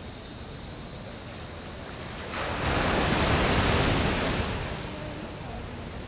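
Outdoor ambient noise: a steady high hiss throughout, with a louder rush of noise for about two seconds in the middle.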